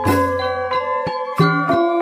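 Balinese gamelan playing: bronze metallophones struck in a quick rhythm, each note ringing on, with a low held tone through the first half.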